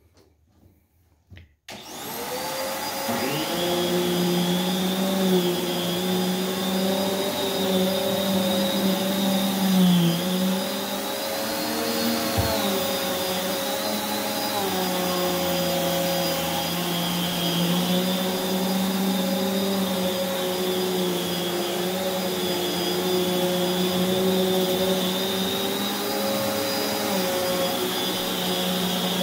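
Prolux X8 Elite backpack vacuum switched on a couple of seconds in, its motor spinning up to speed and then running steadily with the EBK360 power nozzle on carpet. Its pitch dips and wavers briefly now and then.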